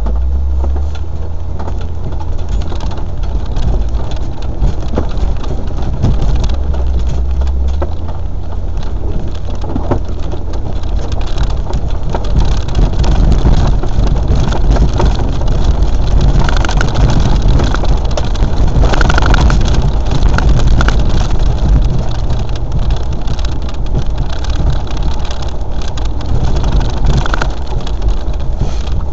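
Land Rover four-wheel drive under way on an off-road run: a steady low engine drone that shifts pitch a couple of times, with a dense crackle of small knocks and rattles over it.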